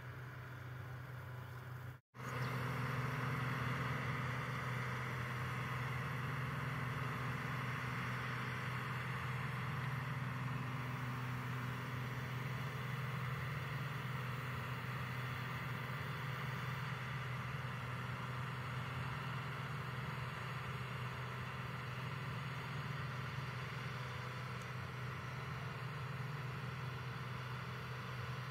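Claas Dominator 58 combine harvester running steadily at work, its diesel engine and machinery making a constant drone. The sound drops out briefly about two seconds in, then resumes a little louder.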